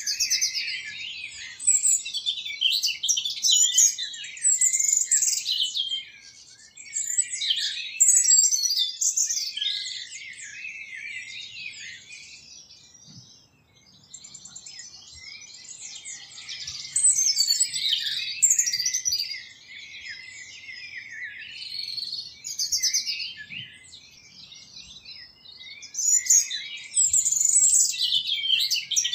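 A chorus of many small birds chirping and singing at once, with quick high chirps and trills overlapping, dropping away briefly about halfway through before resuming.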